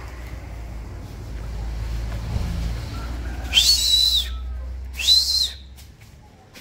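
Two loud, high whistles about a second and a half apart, each rising to a held note and dropping away, like someone whistling to call people over. Beneath them a car's low engine rumble runs on and cuts off near the end.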